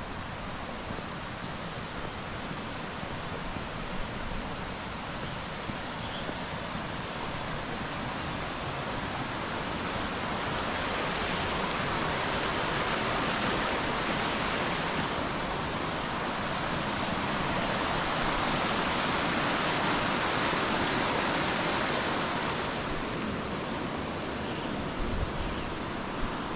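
Steady rush of a rocky mountain stream, swelling to its loudest in the middle and easing off near the end.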